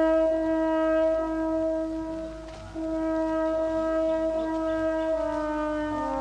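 Music of slow, long-held horn-like notes, each held for one to two and a half seconds before moving to the next pitch, with a brief drop in loudness about two and a half seconds in.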